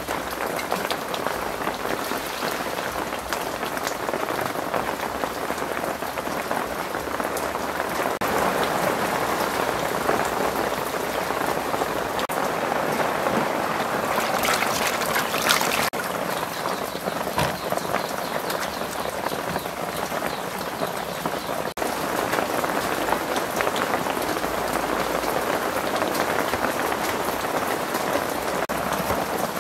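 Heavy rain falling steadily, with a brief louder burst of splashing about halfway through as shellfish are rubbed in a basin of water.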